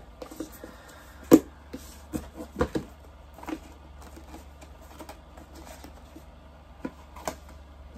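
Irregular light knocks and clicks from a quilting kit's box, papers and fabric pieces being handled on a table. The loudest knock comes just over a second in, with a few more scattered after it.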